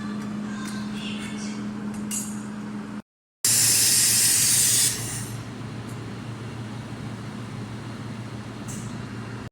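Handheld fiber laser welding and cutting machine at work on metal: a steady low machine hum under a hiss from the laser head, with faint crackling ticks. About three and a half seconds in, a loud hissing burst lasts for roughly a second and a half, then eases back to the quieter hiss.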